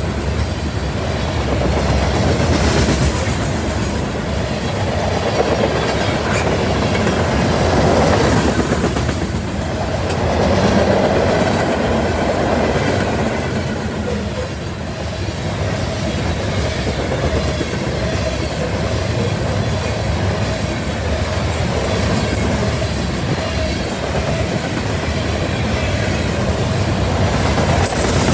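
Covered hopper cars of a long freight grain train rolling past: a steady rumble and clickety-clack of steel wheels on the rails, swelling and easing slightly as the cars go by.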